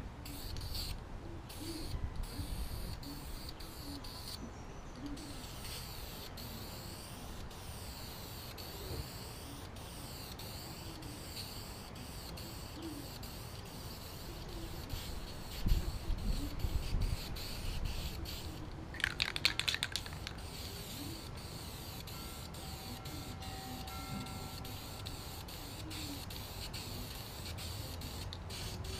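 Aerosol rattle can of wrinkle paint hissing as a heavy coat is sprayed on, in short bursts at first and then in one long continuous spray. A brief burst of clicks comes about two-thirds of the way through.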